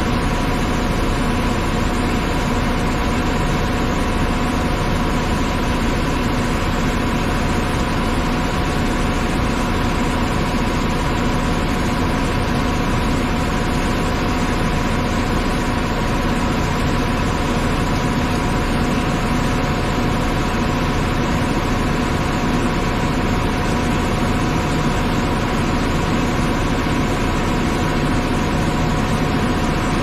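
Steady heavy engine drone of the tractor powering a grain cart's unloading auger while wheat pours into a semi grain trailer, even and unbroken throughout.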